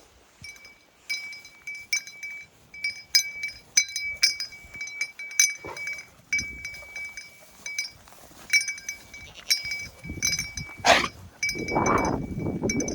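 A dog whining in a high, steady pitch, in repeated short spells, with the metal tags on its collar clinking. Near the end a rough, louder chewing and snuffling noise comes in.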